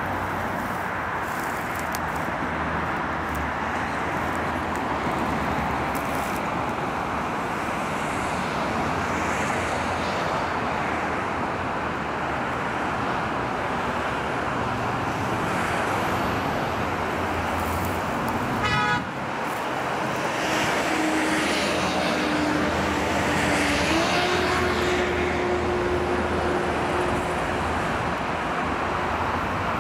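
Steady road-traffic roar. About two-thirds of the way through there is a quick run of clicks, followed by a held horn-like tone that steps up in pitch partway and then fades.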